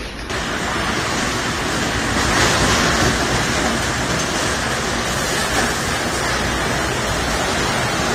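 Tornado winds blowing hard: a loud, steady, dense rush of wind.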